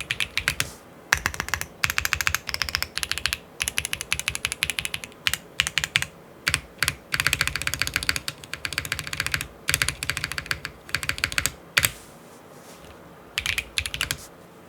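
Typing on a mechanical keyboard with heavy tactile WS Black switches, an aluminium plate and GMK keycaps: runs of fast keystrokes broken by short pauses. The typing stops about twelve seconds in, with one more short burst near the end.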